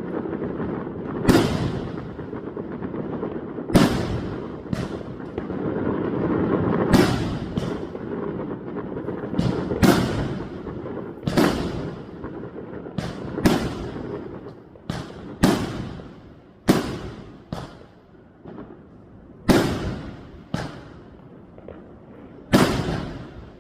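Fireworks going off: a string of sharp bangs at irregular intervals, one every second or two, each followed by a rolling echo, over a rumble of further explosions that thins out in the second half.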